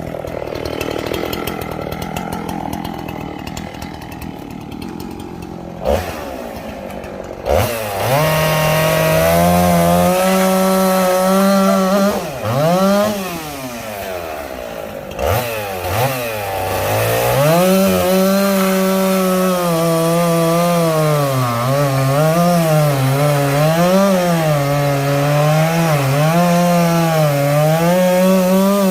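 Two-stroke chainsaw cutting sweetgum firewood. It runs at low revs at first, is throttled up about eight seconds in, and runs hard under load, its pitch sagging and recovering as the chain bites. It drops off briefly twice around the middle.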